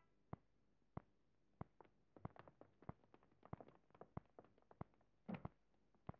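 Faint, irregular footsteps on a hard floor, a few quick steps a second, with one louder thump about five seconds in.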